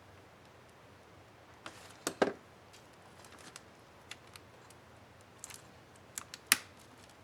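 Small plastic clicks and snaps from a number-pad keycap and its retainer clip on an Asus K55A laptop keyboard being handled and fitted by hand. Scattered light ticks, with a louder double snap about two seconds in and another sharp snap near the end.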